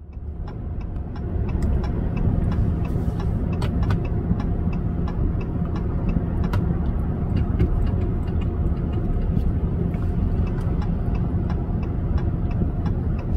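Pickup truck engine idling, heard from inside the cab, with a steady ticking at about two or three ticks a second.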